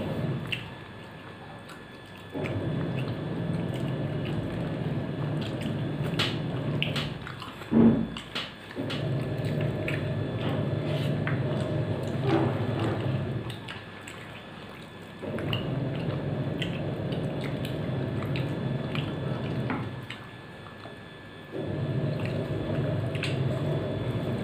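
Hand eating from a steel plate: rice being mixed by hand, food lifted to the mouth and chewed, heard as scattered small clicks and wet sounds with a louder knock about eight seconds in. Under it, a steady low rushing noise cuts in and out every few seconds.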